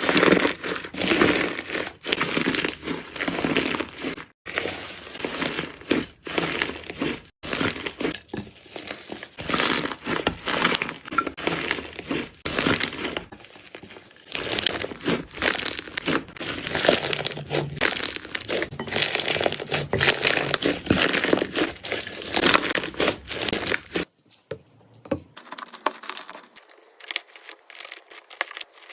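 Jelly slime being squeezed and pressed by hand, with dense, irregular crackling and popping. It turns softer for the last few seconds.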